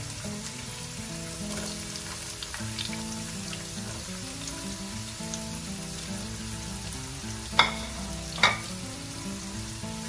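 Diced carrot and sliced onion sizzling steadily in hot oil with cumin and mustard seeds in a wok, with two sharp clacks near the end.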